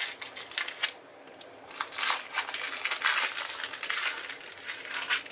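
Baking paper crinkling and rustling as it is pulled away from the edge of a freshly baked cake base, in quick crackly bursts with a short lull about a second in.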